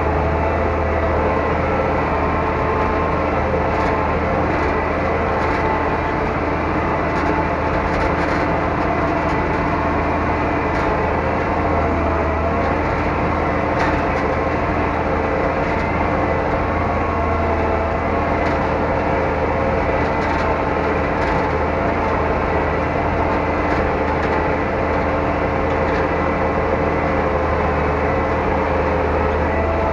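Zetor 12145's six-cylinder turbo diesel engine running steadily under load while the tractor pulls a field drag, heard from inside the cab.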